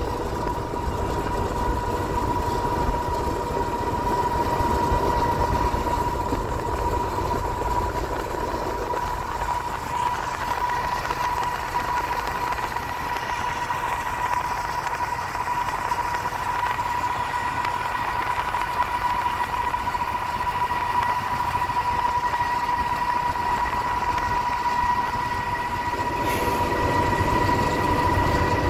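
GE C44-9W diesel-electric locomotive running at track speed, heard from a vehicle pacing alongside. It is a steady rumbling drone with a constant high whine, over wind and road noise.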